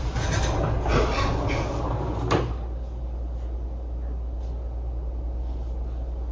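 Rustling and knocking handling noises ending in one sharp knock about two and a half seconds in, then only a steady low hum.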